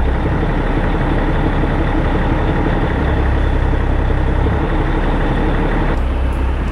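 A fishing boat's engine runs steadily under a loud wash of water along the hull. The low hum shifts slightly near the end.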